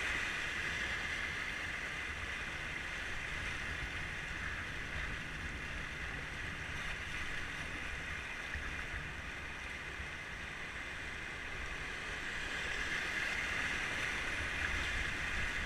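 Steady rushing of river whitewater, swelling slightly near the end.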